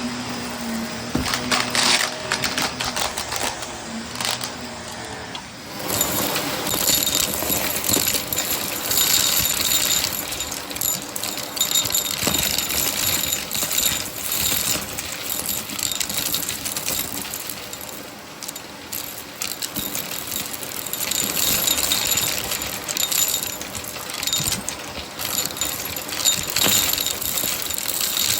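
Shark vacuum cleaner running and sucking up crunchy debris, which crackles and rattles as a dense stream of clicks over the motor's steady noise. The crackling gets louder and busier about six seconds in.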